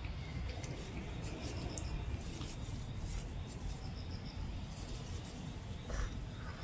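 Soft rubbing and rustling of a tangled cotton rope toy as a hand works the strands and a Shih Tzu puppy mouths and tugs at them, with faint scratchy ticks.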